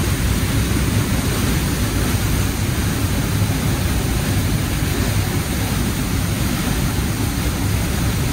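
Trümmelbach Falls, a glacier-fed waterfall, pouring through a narrow rock gorge inside the mountain: a loud, steady rush of churning water.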